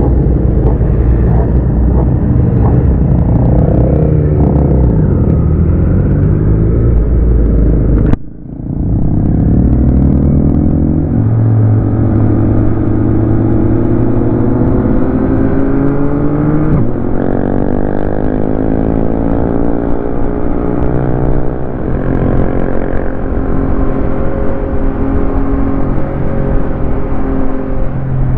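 Yamaha MT-09's inline three-cylinder engine under way, its pitch climbing steadily as the motorcycle accelerates through the gears. The sound cuts out abruptly about eight seconds in and returns, and about halfway through the pitch drops at an upshift and climbs again.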